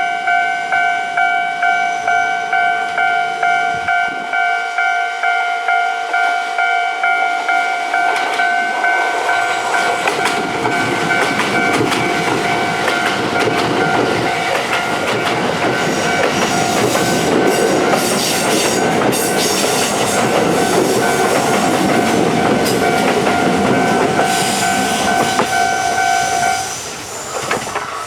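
Japanese level-crossing warning bell ringing in a rapid, steady repeat. From about ten seconds in, Kintetsu 12200 and 22000 series express trains run through the crossing, passing each other with a growing rumble and rail clatter. The bell cuts off about a second before the end as the crossing clears.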